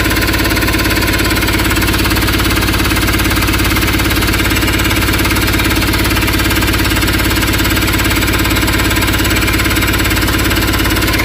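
Freshly overhauled Mahindra Supro turbodiesel engine idling steadily, running without its gearbox, with an even fast beat.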